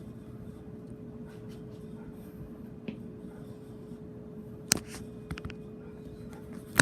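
52-inch Homestead Universal knockoff ceiling fan running on medium: a steady motor hum over a low airflow rumble. Two sharp clicks about two seconds apart near the end, the hum cutting off with the second.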